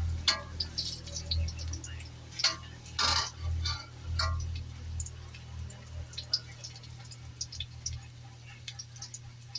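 Garlic frying in hot cooking oil in a frying pan, crackling and popping in quick irregular clicks that grow sparser after the first few seconds, over a low steady hum.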